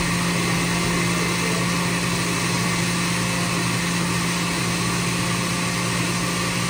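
Oster countertop blender motor running steadily at one speed, blending a thick liquid mix of coconut cream and milks.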